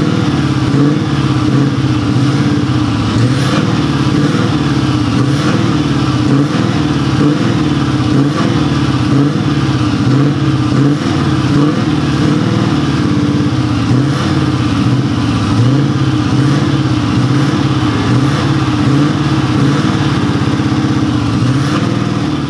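Scania R730's 16-litre V8 diesel running steadily and loud through its open side-exit exhaust pipe.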